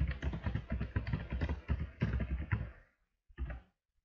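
Fast typing on a computer keyboard, a quick run of keystrokes that stops about three seconds in, followed by one short separate keystroke burst just after.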